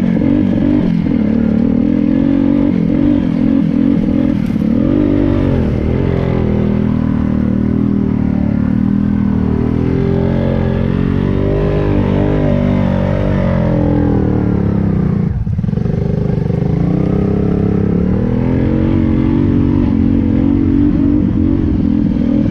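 ATV engine running hard and revving, its pitch rising and falling with the throttle, with a brief drop about fifteen seconds in.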